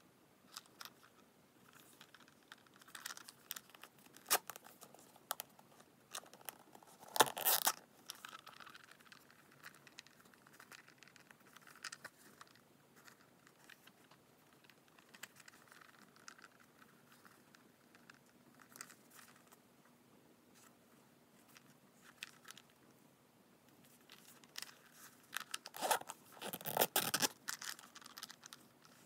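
Zipper of a small coin pouch being run open about seven seconds in and run again near the end, with faint scraping and rustling of hands handling the pouch in between.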